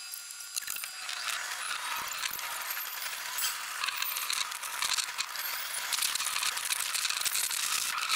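Sound from an Enoshima Electric Railway train ride played back at twenty times speed, squeezed into a high-pitched, rapid clicking and hissing chatter.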